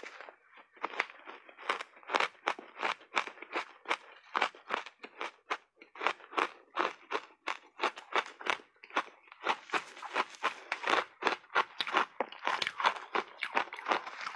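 Shaved ice dusted with matcha powder crunching as it is chewed in big mouthfuls. There are sharp crunches about two to three a second, coming faster after about ten seconds.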